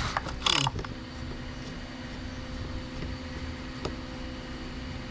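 Old chainsaw's recoil starter cord pulled once, a short rasping whirr about half a second in, and the engine does not fire. A steady low hum follows, with a single click near the end.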